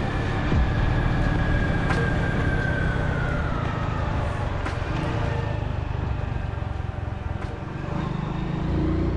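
Road vehicle driving: steady engine and road rumble, with a faint tone gliding downward over the first few seconds and a few brief ticks.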